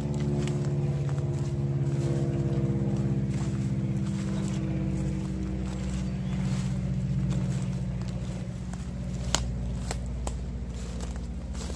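A distant engine runs steadily, a low hum whose higher tones fade away about halfway through. Footsteps crunch through leaf litter and dead twigs, with a sharp snap about nine seconds in.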